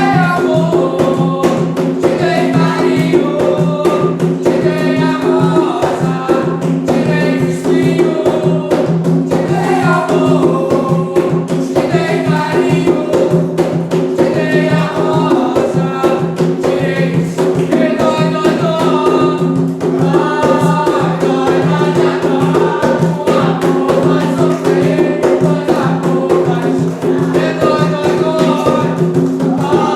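Group singing a religious chant, an Umbanda ponto cantado, over drums and rattling percussion.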